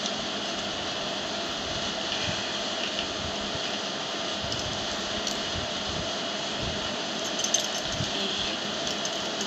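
Steady background noise hiss, with faint clicks of metal knitting needles as stitches are worked and one sharper clink about seven and a half seconds in.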